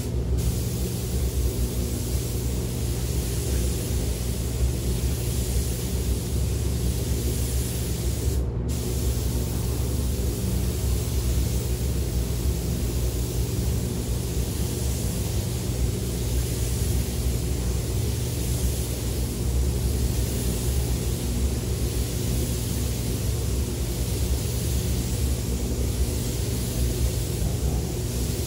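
Compressed-air spray gun hissing steadily as it sprays quartz glass coating onto a car's paint, over a steady low hum. The hiss drops out briefly about eight seconds in.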